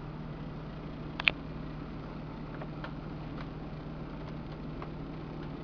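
Steady low electrical hum, with a sharp double click about a second in and a few faint ticks.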